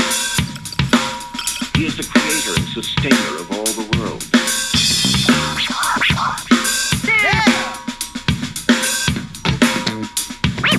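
Music with a steady drum-kit beat of kick, snare and hi-hat, played through an XDOBO Prince 1995 II Bluetooth speaker.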